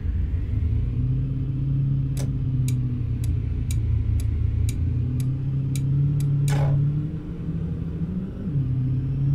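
Steady car engine and road rumble heard inside the cabin, with a turn-signal indicator ticking about twice a second for several seconds before it stops partway through.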